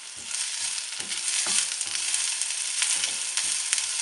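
Sliced chili and garlic sizzling in hot oil with onions in a wok, stirred with a wooden spatula that knocks against the pan now and then. The sizzle swells within the first second as the new ingredients hit the oil.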